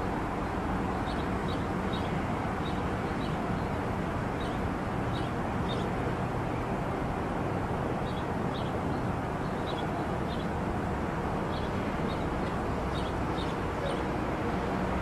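Steady outdoor rumbling noise with a low hum under it. Faint, short high chirps come through it in small clusters every second or so.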